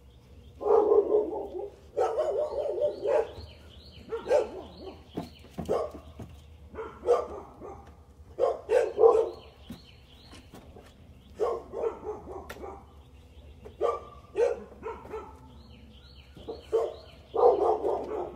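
Dogs barking over and over in irregular bouts of single barks and quick runs of barks.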